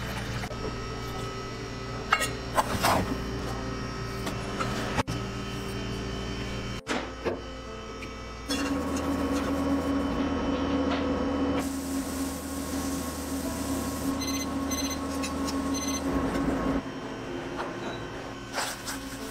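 Steady electrical humming of kitchen equipment, with a few sharp knocks about two to three seconds in and again around five and seven seconds. A stronger, higher hum runs through the middle section, while a pot of milk heats on a glass-top cooktop.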